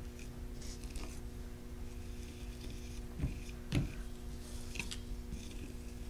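Metal spatula scraping and dabbing thick texture paste over plastic mesh netting, in soft irregular scrapes and ticks, with two dull knocks a little past halfway, the second louder. A steady low hum runs underneath.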